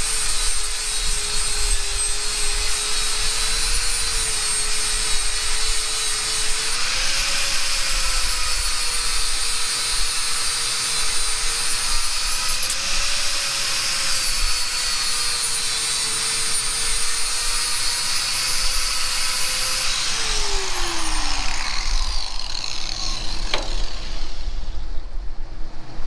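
A power grinder running steadily against metal, its whine dipping and recovering as it is pressed into the work. About 20 seconds in it is switched off and spins down with a falling whine.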